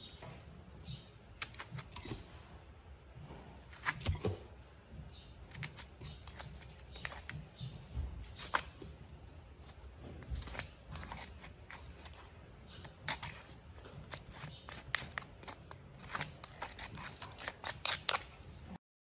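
Irregular scrapes and clicks of grooming tools worked over a horse. The sound stops abruptly shortly before the end.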